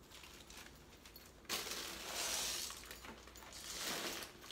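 Crinkly rustling of a gift bag's tissue paper as a puppy digs its head into it. It comes in two spells: the first starts suddenly about a second and a half in, and a shorter one follows near the end.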